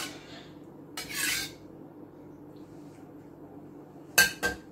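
Metal spatula scraping briefly inside a stainless steel wok about a second in, then two sharp metallic knocks of the spatula on the wok in quick succession near the end, the louder of the sounds.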